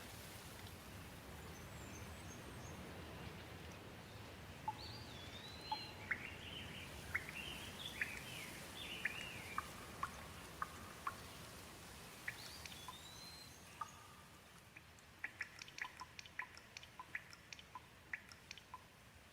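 Gentle rain falling as a soft steady hiss, with small birds chirping and calling through it from about 4 s to 14 s. Later the rain thins and a quick run of water drips ticks near the end.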